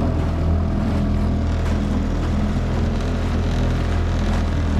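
Nissan Super 5 five-horsepower outboard motor running steadily on a jon boat.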